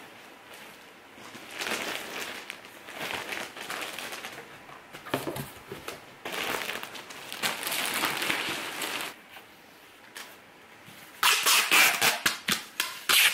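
Clothing and a plastic bag rustling and crinkling as they are handled and packed into a cardboard box. Near the end, brown packing tape is pulled off the roll in loud, quick rasping rips to seal the box.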